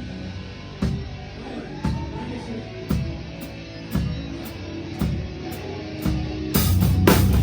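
Live metalcore band: ringing guitar chords over a sparse beat, one drum hit about once a second, then the full band with drums comes in loud near the end.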